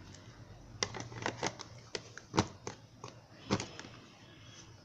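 Irregular clicks, taps and light rustles of an iPad box and its accessories being handled, a dozen or so small knocks with the loudest about two and a half seconds in.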